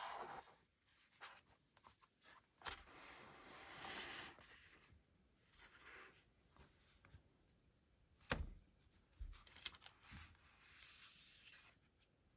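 Gloved hands handling paperboard packaging: soft rustling and sliding of paper and card, with a few light taps. The loudest is one sharp tap about two-thirds of the way in.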